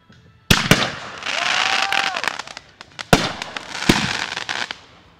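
Aerial fireworks bursting overhead: sharp bangs, two close together about half a second in and two more around three and four seconds in, each followed by a long crackling shower of the bursting stars.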